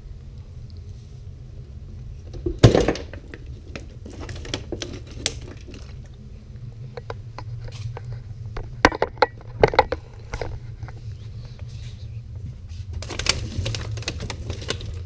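Scattered knocks and clicks of handling, the loudest about three seconds in, over a steady low rumble. Near the end, plastic water bottles are set onto a freezer's wire shelf.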